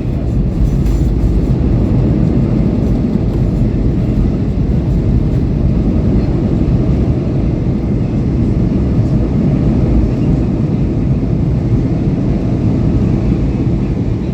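Airliner cabin noise heard from a passenger seat: a loud, steady low rumble of engines and airframe during the plane's arrival.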